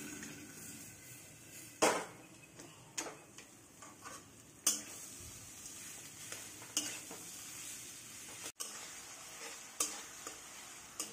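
Steel spatula scraping and knocking against a steel kadai while stirring boiled potato pieces and masala frying in a little oil, under a faint sizzle. The sharp scrapes come every second or two.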